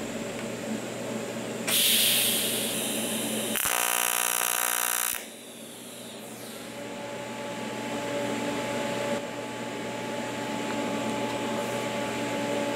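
AC TIG welding arc on 5052 aluminum sheet making a fusion tack weld without filler rod. It strikes about two seconds in with a short hiss, buzzes steadily for about two and a half seconds, then cuts off.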